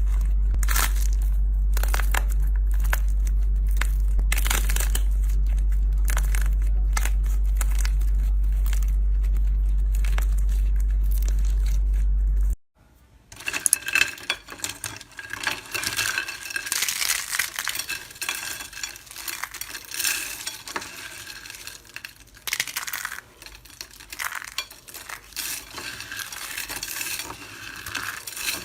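Slime being squeezed and poked by hand, with quick crackling and clicking, under a steady low hum for the first half. About halfway through the hum cuts off and a denser, brighter crackling begins.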